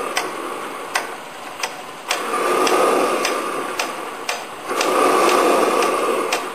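Hand pump on the pressurised paraffin burner tank that heats the hot bulb of a Hornsby hot bulb engine being worked, building pressure to vaporise the fuel. Repeated sharp ticks come through, with a rushing noise that swells for a couple of seconds at a time and then drops away.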